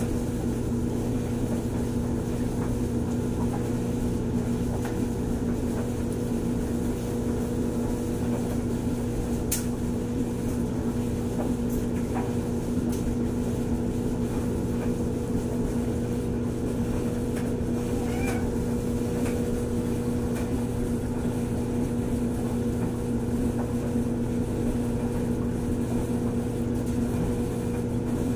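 Steady low machine hum at one constant pitch, with a faint single click about a third of the way through.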